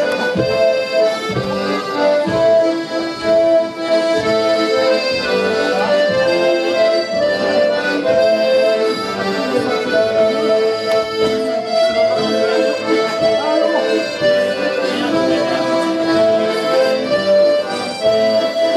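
An ensemble of diatonic button accordions playing a traditional tune together, sustained notes moving in a steady melody.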